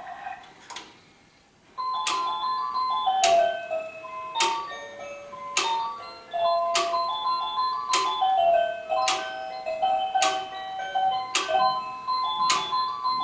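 Engstler battery-powered quartz cuckoo clock playing one of its built-in electronic melodies after the cuckoo call. The tune starts after a short pause about two seconds in, with a sharp click about every second and a bit along with it.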